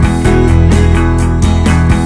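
Loud rock-style music with guitar over sustained bass notes and a steady beat of about four strokes a second.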